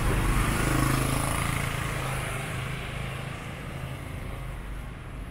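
A motor vehicle passing on the street, its engine loudest at first and then fading as it moves away.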